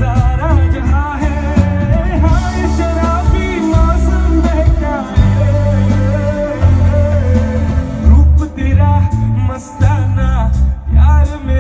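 Live band playing loud amplified pop-rock: a male singer's vocal over electric guitars, bass guitar and drums, with a heavy bass. Drum hits stand out more sharply in the second half.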